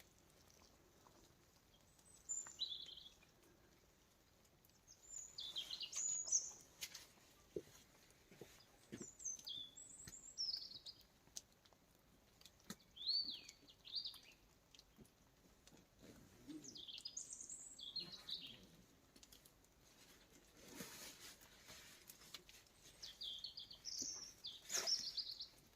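Small songbirds singing in woodland: short, high chirping phrases every couple of seconds, with a few faint knocks and a brief rustle between them.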